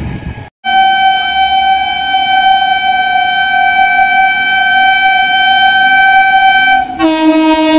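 Indian Railways WAP-7 electric locomotive horn giving one long, steady, high-pitched blast of about six seconds, then switching to a lower tone near the end. It is preceded by a moment of train rumble that cuts out into brief silence.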